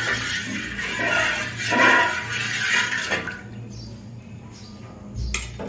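Watery spice broth sloshing as a spoon stirs it in a metal pot, for about three seconds, then quieter, with a short knock near the end.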